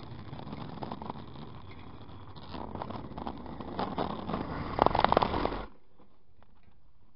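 Wind and road noise on a camera mounted to a moving bicycle, a rushing noise that gets louder and ends in a burst of rattling knocks about five seconds in, then cuts off suddenly.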